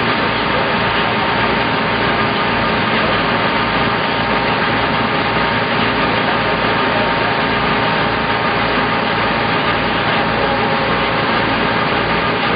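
An engine running steadily, with a constant hum and an even low throb.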